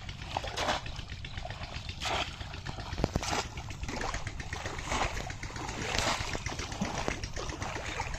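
A bamboo plunge-basket fish trap slapped down again and again into shallow muddy water, each plunge a splash, about one every second or so.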